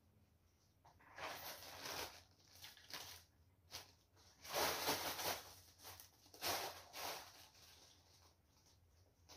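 Clear cellophane wrapping crinkling and rustling in irregular bursts as it is handled, loudest a little past the middle.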